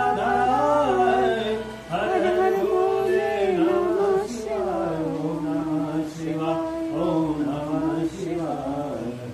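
Male Hindu priest chanting Sanskrit mantras in a melodic, sustained sing-song style, in long phrases with brief breaks for breath about two and four seconds in.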